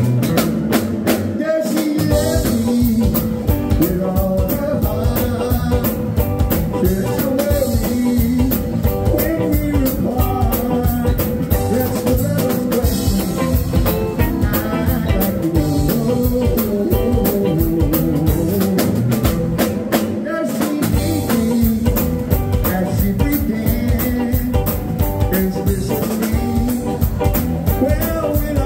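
A live band playing a steady-beat number on drum kit, electric bass and electric guitar, with a man singing into a microphone near the end.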